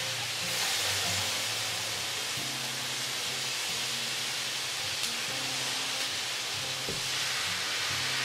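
Rice, beef and vegetables sizzling with a steady hiss in a hot stainless steel pan as soy sauce is poured in while the rice toasts.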